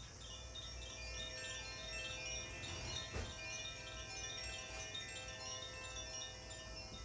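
Makino-style tuned chimes played for a sound bath: many high bell-like notes struck one after another, each ringing on so that they overlap.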